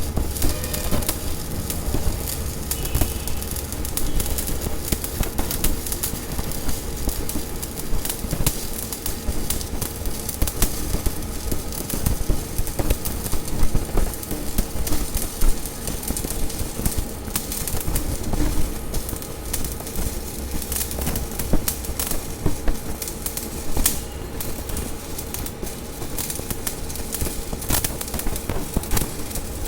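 Stick arc welding on thin sheet metal at a low current of about 53–55 amps: a continuous crackling arc full of rapid, irregular sharp pops.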